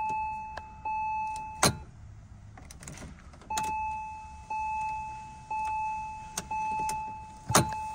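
Porsche 996 dashboard warning chime sounding a string of one-second tones, each fading out: two, then after a short pause four more. Sharp clicks come between them as the key is turned, but the engine does not crank, which is the no-start the immobilizer fault causes.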